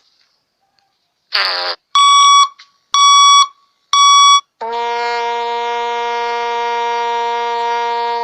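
Sound-effect clips played in sequence: a short noisy burst, then three short beeps about a second apart, then one long, lower, buzzy tone held for about three and a half seconds that cuts off suddenly, like a countdown ending in a buzzer.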